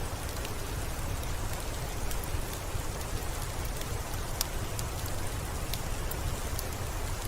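Steady rain falling, an even hiss with scattered sharp drop ticks over a low rumble.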